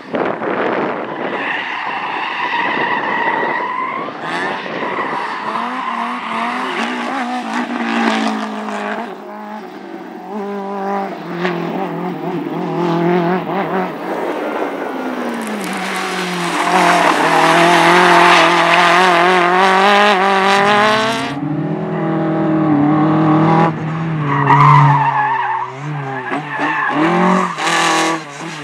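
A competition car driven hard through a slalom course: the engine revs up and down again and again through the tight turns while the tyres squeal. About two-thirds of the way through comes the loudest stretch, a long tyre squeal over high revs that stops abruptly, after which the engine drops to lower revs.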